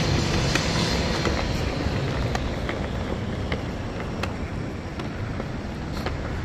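Steady vehicle engine rumble and street traffic noise, a little louder at the start and easing slightly, with a few faint clicks.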